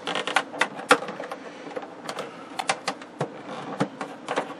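Irregular clicks and taps as fingers work under the trim band around a hard, brittle plastic CRT screen cover, loosening the band against the plastic; the sharpest click comes about a second in.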